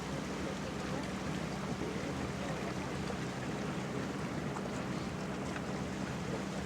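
Motorboat under way: a steady engine hum with the rush of water and wind.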